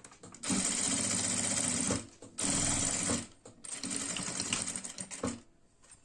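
Sewing machine stitching in three short runs with brief stops between them. The last run is less even.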